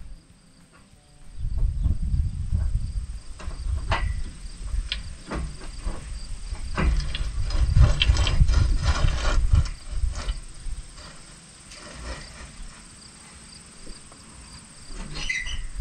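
Outdoor ambience: wind rumbling on the microphone in gusts, with scattered knocks and clicks and insects chirring faintly in the background.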